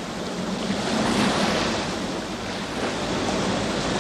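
Sea surf breaking on a shore: a continuous rushing wash of waves that swells about a second in, eases slightly, then builds again.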